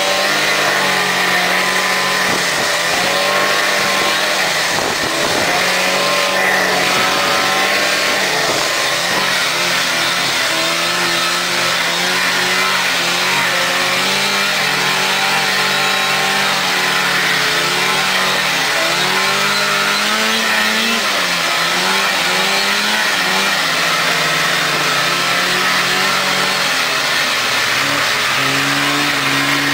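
Polaris Indy snowmobile engine running under way, its pitch rising and falling with the throttle, and shifting to a new pitch near the end.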